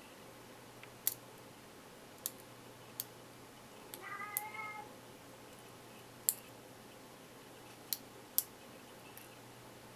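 Pick and tension wrench clicking in a padlock's keyway while it is being picked, as about six sharp, scattered clicks. About four seconds in there is a short meow-like cry.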